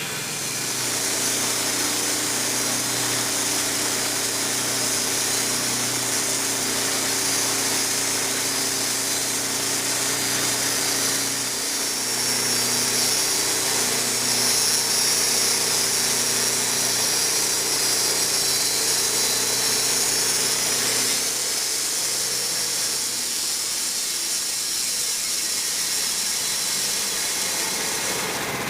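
Engine-driven sawmill running steadily, its blade cutting through a soft maple cant with a strong high hiss over a low engine note. The low engine note drops away a little over 20 seconds in.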